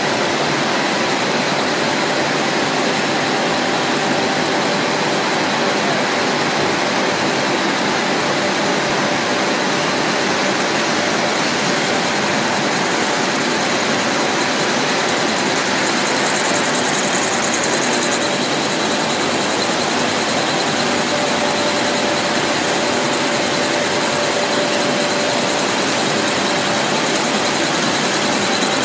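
Macaroni production line machinery running: a steady, dense mechanical noise with a faint high whine from the extruders and conveyor.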